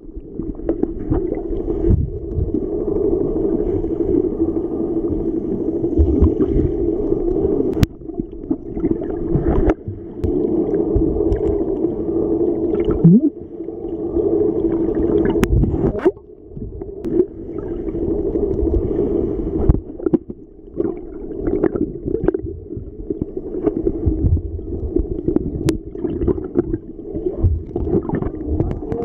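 Muffled underwater sound from a camera held below the sea surface while snorkelling: a steady low hum that drops out for a moment several times, with scattered sharp clicks and knocks against the housing.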